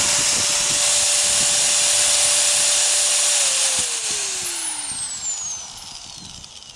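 An electric power tool runs at a steady speed with a loud hiss. It is switched off about three and a half seconds in, and its motor winds down, the pitch falling as it slows.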